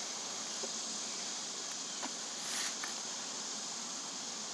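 Steady low background hiss with a few faint clicks and a brief soft rustle a little past halfway.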